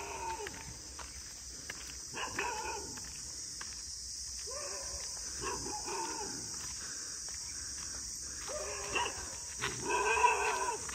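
A dog barking in repeated bouts, loudest near the end, over a steady high insect-like hiss.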